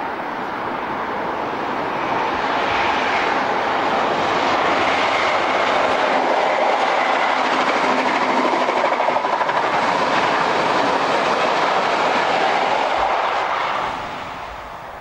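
InterCity 125 High Speed Train passing at speed: diesel power-car engine and wheels on the rails. It grows louder over the first couple of seconds, holds steady, then falls away about fourteen seconds in.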